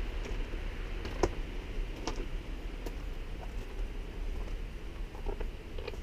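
Footsteps on a dirt and gravel trail: irregular light clicks and crunches over a steady background hiss.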